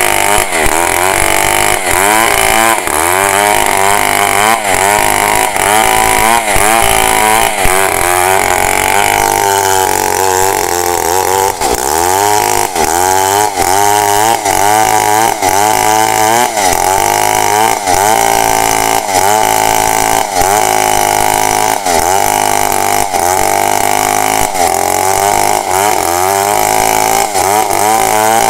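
Chainsaw engine running hard under load as it rip-cuts lengthwise into a large log to slice it into planks. The engine pitch keeps dipping and recovering as the chain bites into the wood.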